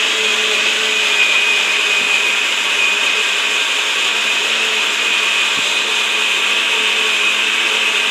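Electric kitchen mixer grinder running steadily, grinding grated fresh coconut and spices with little water into a thick, fine paste; a steady high whine rides over the grinding noise.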